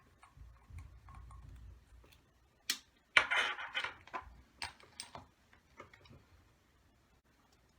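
Small metal engine parts and tools being handled and set down during disassembly of a model nitro engine: a low rumble, a sharp click, then a run of clinks and a brief scrape, with faint ticks after.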